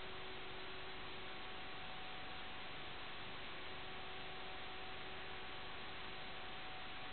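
Steady static hiss with a faint, even hum underneath, unchanging throughout: the empty audio channel of an analog FPV video downlink.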